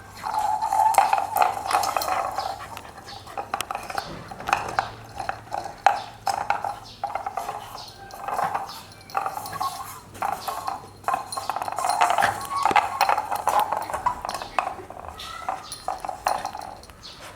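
A puppy making play noises, a pitched, broken vocal sound in long stretches, while a hard coconut shell knocks and scrapes repeatedly.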